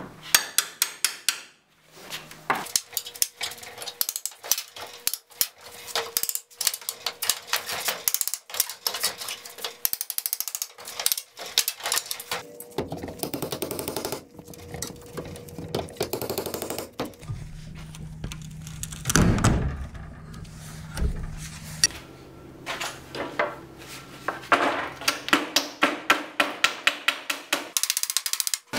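Old wooden fence boards being pried and knocked apart with a flat pry bar and hammer: many sharp knocks and clatters of metal on weathered wood as the nailed boards are worked loose.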